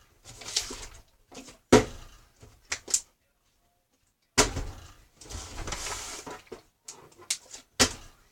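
A plastic water bottle being flipped and landing on a hard surface: several sharp knocks with handling noise in between.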